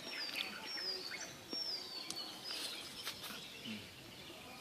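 Wild birds calling in woodland: a thin, high whistle that falls in pitch, given three times in the first two seconds, then a scatter of short chirps and a few sharp clicks.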